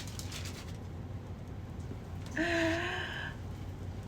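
A woman's short wordless exclamation, held for about a second and rising a little, about halfway through. Faint rustling of packaging comes before it.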